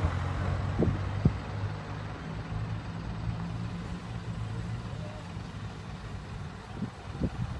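A vehicle engine running with a steady low hum that slowly fades away, with a few short low thumps near the start and again near the end.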